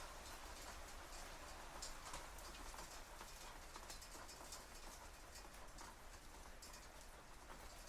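Hailstones striking metal shutters: an irregular patter of small, sharp ticks over a faint hiss.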